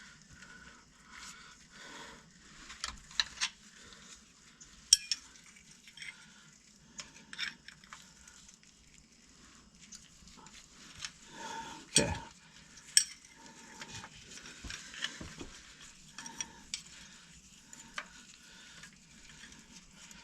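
Wrench and steel bolts clinking and tapping as bolts are worked off a truck transmission: scattered sharp metal clicks, with louder knocks about 5 seconds and 12 to 13 seconds in.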